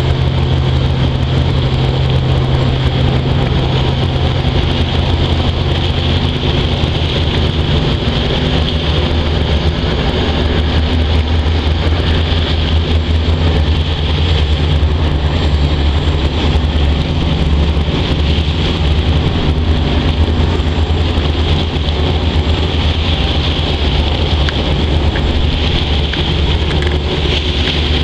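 A passenger boat's engine running as it passes close by: a steady low drone that changes tone about seven seconds in, over the wash of water along the hull.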